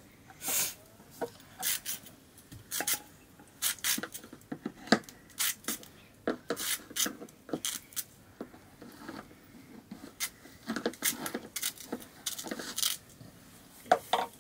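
A large knife scraping and cutting the peel off slices of fruit in irregular short strokes, about one or two a second, with sharp clinks as pieces land on a steel plate.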